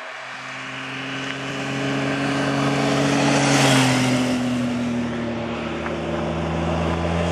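Touring motorcycle riding past: its engine note grows as it approaches, is loudest about four seconds in, then drops in pitch as it goes by. A second motorcycle's engine is building near the end.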